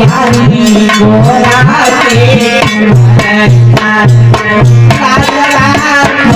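Instrumental music of a Hindi devotional song: a hand drum keeps a steady beat with deep bass strokes, some sliding in pitch, under a wavering melody line.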